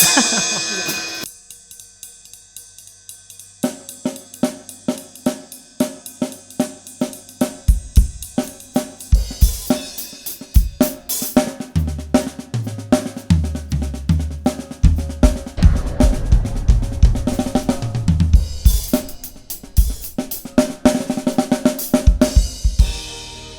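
Pacific Drums 805 series drum kit with a Mapex snare and Sabian cymbals being played in a steady rock groove, opening on a cymbal crash, with a lighter passage a second or so in before the full beat and fills return. A low bass line from a backing track runs under the beat around the middle.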